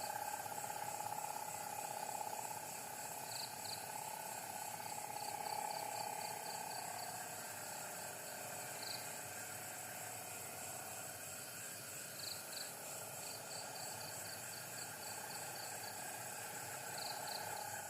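Night insects, crickets or katydids, chirping in short high pulses that come in quick trains and pairs, over a steady wavering hum.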